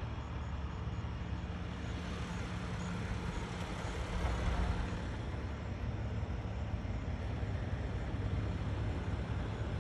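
Vehicle engine idling: a steady low rumble, with a low hum that stops about halfway through.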